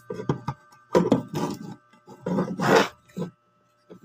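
Handling noise: several short bursts of clatter and scraping as the speaker's metal amplifier panel is worked loose and lifted out of the cabinet.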